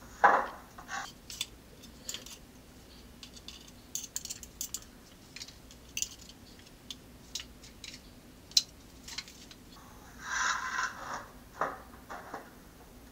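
Wet wood ash being scraped and dug out of a glazed clay plant pot with a wooden-handled tool: a string of knocks, clinks and scrapes against the pot and plastic buckets. There is a sharp knock right at the start and a longer scrape about ten seconds in.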